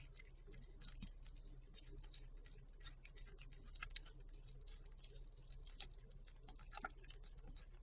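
Mother cat licking and cleaning her newborn kitten: a soft, irregular run of faint wet clicks, a little louder about four seconds in and near the end, over a steady low hum.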